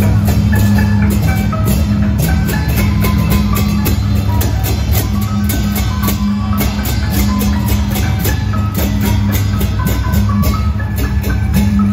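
Electronic dance music with a fast, steady beat, heavy bass and a short-note synth melody over it.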